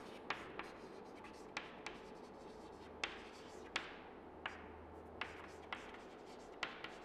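Chalk writing on a chalkboard: about ten sharp taps at irregular intervals as the chalk strikes the board, with faint scratching strokes between them.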